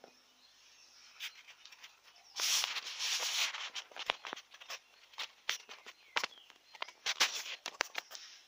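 Close rustling and crackling of a gauze dressing being handled right by the microphone, with a dense burst of rustling about two and a half seconds in and many sharp clicks after it.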